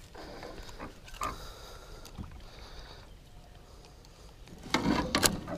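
Light clicks and knocks of long pliers working treble hooks out of a northern pike's mouth as it lies in a landing net at the side of an aluminum boat. A louder burst of handling noise comes about five seconds in.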